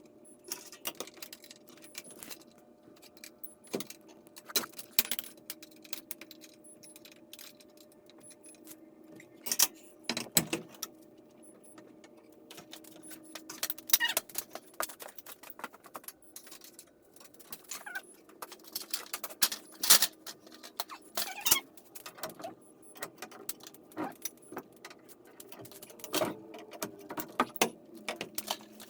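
Steel winding bars clinking and clanking against a garage door torsion spring's winding cone as the spring's tension is wound up turn by turn: irregular sharp metallic clicks and jingles, with a faint steady hum underneath.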